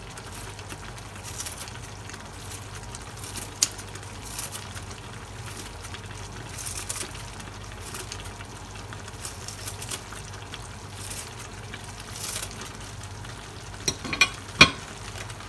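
Kitchen scissors snipping green onions, short crisp clicks at irregular intervals, a few sharper ones near the end. Underneath, a pot of noodle soup simmering, with a steady low hum.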